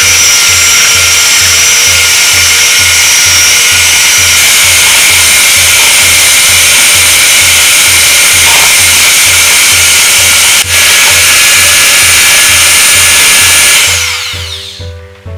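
Electric hand mixer running at speed, its twin beaters whipping heavy cream in a bowl, with a steady motor whir and a regular low pulse. Near the end it is switched off and the sound dies away.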